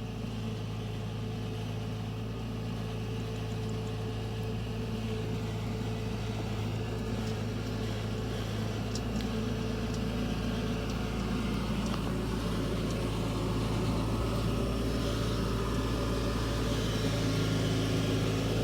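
Combine harvester's diesel engine running steadily, its low drone getting slightly louder over the stretch.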